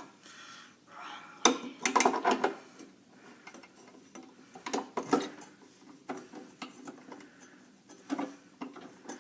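Metal hand tools clinking and clattering in three short clusters, from wrench work on bolts.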